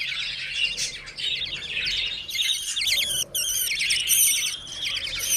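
Budgerigars in a nest box chirping and chattering in rapid, high, repeated notes, growing busier and louder about two seconds in.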